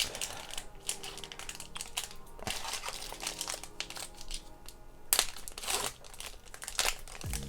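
Foil wrapper of a Panini Mosaic football card pack crinkling and tearing as it is ripped open by hand, in irregular crackling bursts.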